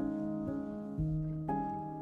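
Soft instrumental background music, a new note or chord about every half second.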